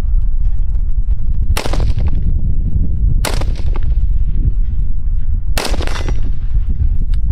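Three rifle shots a couple of seconds apart, each with a short ringing tail: an AR-15 firing 5.56 M855 green-tip rounds from a 20-inch barrel, over a steady low rumble.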